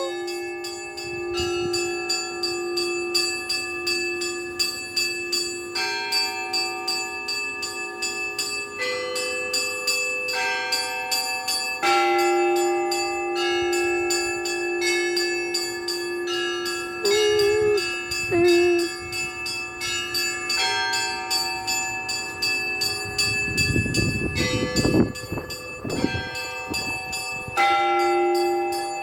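Church bells ringing in the Russian Orthodox manner: a deeper bell rings on for several seconds at a time while smaller bells are struck in a rapid, even rhythm, and the set of notes changes every few seconds.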